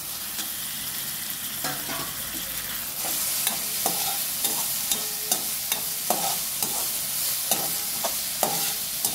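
Chopped onions, capsicum and tomatoes sizzling in oil in a thick kadai, stirred with a steel spoon that clinks against the pan. The sizzle grows louder about three seconds in, when the stirring starts, and the spoon strikes then come about twice a second.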